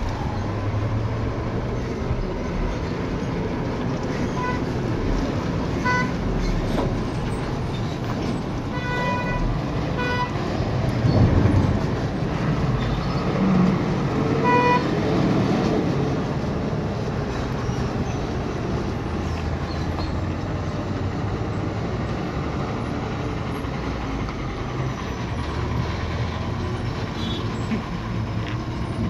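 Heavy diesel lorries running past at close range, with a low engine rumble that swells loudest a little before the middle. Several short horn toots sound through the first half.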